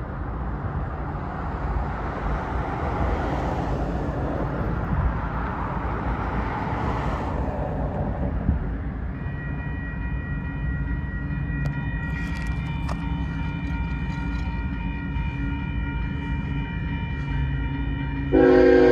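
Road traffic rumbling, then from about halfway a set of steady ringing tones, the railroad crossing's warning bells as the gates come down. Near the end a Union Pacific freight locomotive's air horn suddenly blasts a loud multi-note chord.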